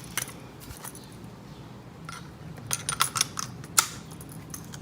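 Hard plastic clicks and light rattles of a cordless pressure washer's gun extension being handled and fitted onto the spray gun. There are a few isolated clicks, then a quick cluster past the middle, with the sharpest click near the end.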